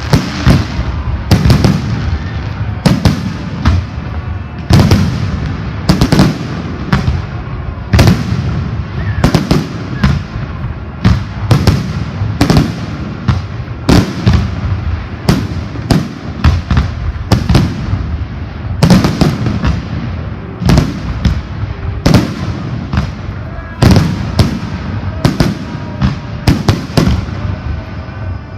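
Fireworks salute: a continuous run of sharp bangs, about one to two a second, each with a deep booming rumble after it.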